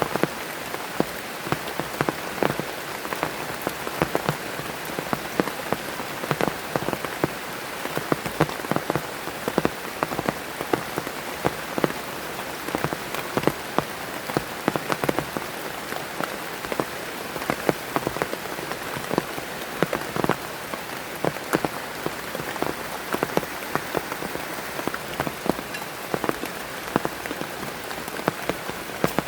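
Heavy rain falling steadily, with many sharp separate drops striking close by at an irregular rate.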